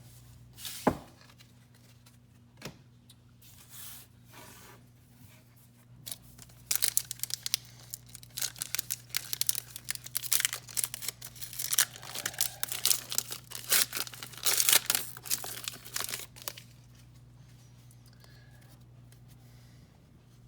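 A foil trading-card pack wrapper being torn open and crinkled for about ten seconds, after a single sharp click about a second in; a low steady hum underneath.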